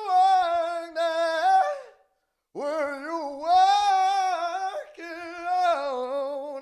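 A high voice singing long, wordless held notes with vibrato, unaccompanied, broken by a brief silence about two seconds in.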